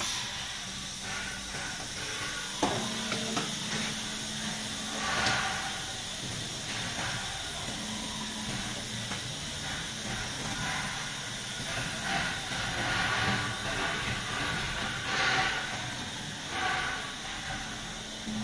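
Automatic-feeding CNC oscillating-knife foam cutting machine running as it loads foam sheets: a steady hiss with a low hum that comes and goes. The hiss swells louder several times.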